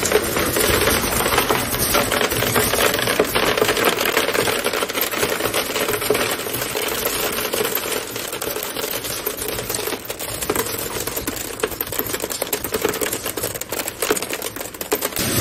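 Glass cullet color sorter running: a dense, rapid clatter of small broken-glass pieces clicking and rattling through the machine and dropping into plastic collection bins, over a steady machine hum.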